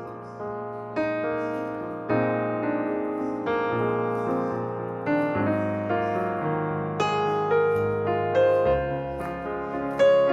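Background piano music: a slow melody of struck notes, a new note or chord about once a second, each ringing and fading.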